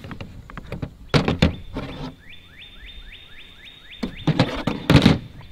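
Knocks and clacks from the parts of an EK Archery Cobra System Adder crossbow as its magazine and limb are taken off and set down on a folding table. There are a few knocks about a second in and a louder cluster near the end. A repeated high rising chirp keeps up in the background from about two seconds in.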